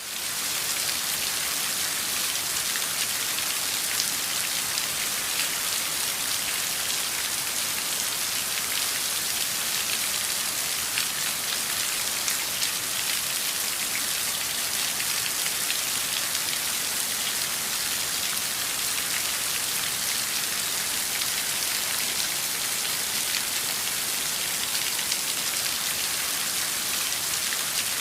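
Heavy rain falling steadily: a dense, even hiss with scattered sharper drop ticks.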